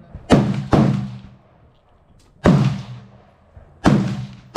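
Gunshots on a firing range: four sharp reports, two in quick succession near the start, one about two and a half seconds in and one near the end, each with a short ringing tail.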